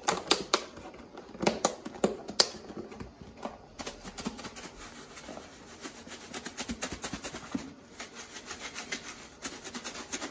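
Lidded plastic food container of dry breading (breadcrumbs, Parmesan, salt and pepper) being shaken to mix it. The crumbs swish and rattle inside in fast repeated strokes, in two spells with a short break about three-quarters of the way through. A few knocks come near the start as the lid is pressed on.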